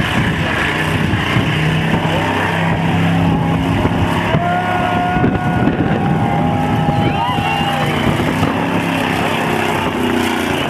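Pre-1992 Mercury Grand Marquis's V8 engine held at high revs through a burnout, its rear tyres spinning on the pavement. A thin tyre squeal comes in about four seconds in and fades out around eight seconds.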